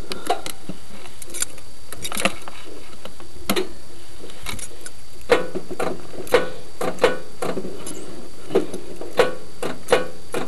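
A string of clicks and key rattles, about one a second and louder in the second half, as the ignition key and controls of a 1991 Craftsman GT6000 garden tractor are worked without the engine cranking. The owner blames a bad foot-pedal safety switch.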